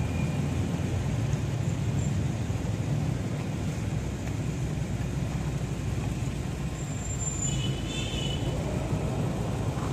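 Steady low background rumble, with a brief high chirp about seven and a half seconds in.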